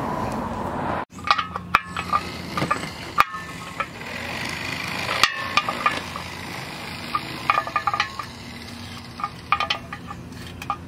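Small metallic clinks and scrapes of an open-end wrench working the nuts on a lamp post's base bolts, coming in short clusters with abrupt breaks between them.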